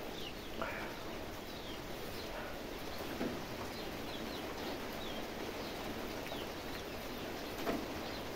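Soft eating sounds: chewing, with fingers mixing rice and mutton curry and a few soft smacks, three of them standing out. Small birds chirp now and then in the background over a steady hiss.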